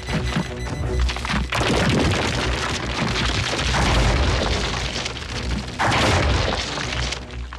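Loud booming, rumbling crash sound effects with heavy bass over background music, surging again about a second and a half in and near six seconds.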